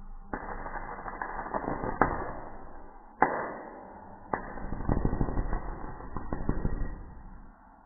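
Electric arc from a homemade mains-powered welding rig crackling and sputtering as the electrode rod touches the metal workpiece, with sharp cracks about two, three and four seconds in as the arc strikes.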